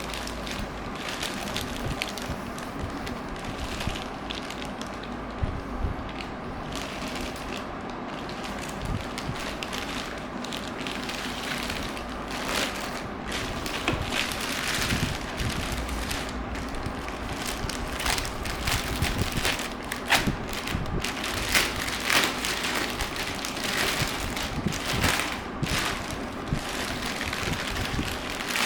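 Robot vacuum running: a steady motor hum with irregular crackling and clicking over it, denser in the second half.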